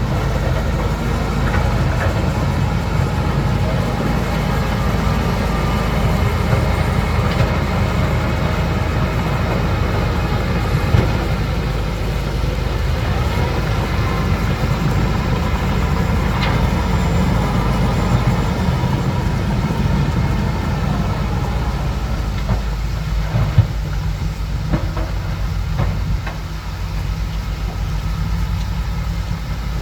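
Bulldozer's diesel engine running steadily, with steel tracks clanking and occasional knocks. The engine's low sound eases off somewhat in the last third.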